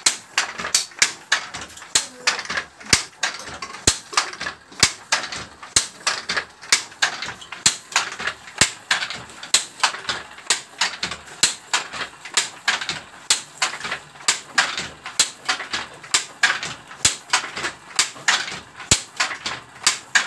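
Wooden handloom being worked in steady rhythm: sharp clacks, about two a second, from the shuttle being thrown across the warp and the batten beating up the weft.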